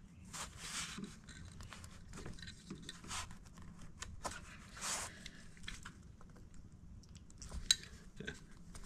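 Faint handling sounds as the front hub motor's cable connector is gripped and tugged apart by hand: soft rubbing and rustling with scattered small clicks, and one sharper click about three quarters of the way through.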